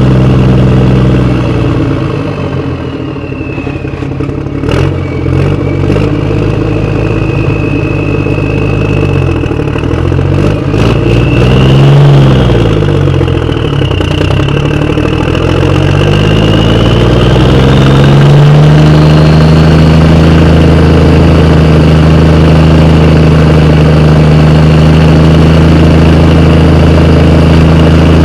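Engine sound running steadily, its pitch sliding down and back up in the middle, then holding steady again. A few sharp clicks come between about four and eleven seconds in.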